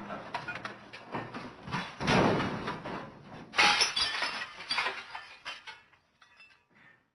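The MGM 'Elephant Smash' stock sound effect: a crash of breaking glass and debris, with a heavy smash about two seconds in and a louder one at about three and a half seconds. Scattered clinks of falling pieces follow and die away just before the end.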